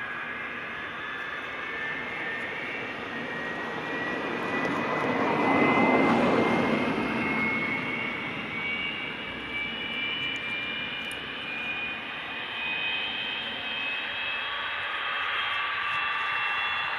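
Avro Vulcan B.2's Rolls-Royce Olympus turbojets running on the ground during an engine run: a steady jet roar with whining tones that climb slowly in pitch. The roar swells louder about five to seven seconds in, then eases back.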